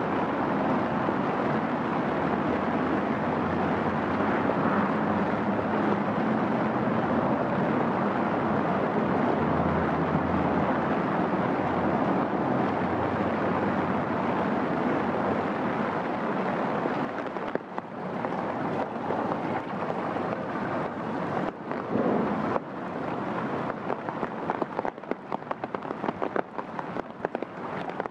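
Heavy rain falling steadily, a dense even hiss. In the last ten seconds or so it turns patchy, with many sharp patters of drops landing close by.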